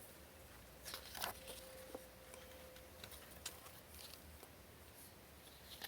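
Faint rustles and a few soft taps of paper being handled, as photo-book pages and printed inserts are turned, over quiet room tone.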